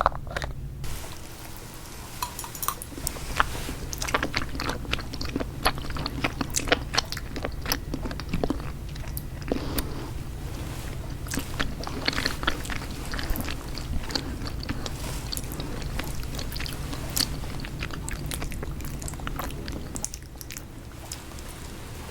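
Close-miked ASMR chewing and biting: a continuous run of crisp mouth clicks and crunches, thinning out and getting quieter about 20 seconds in.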